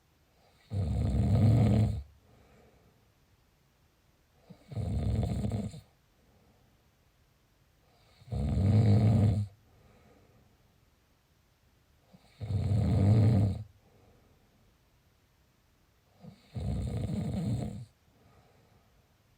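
Steady, rhythmic snoring: five rough, low snores, each lasting about a second and a half and coming about every four seconds, with faint breathing in between.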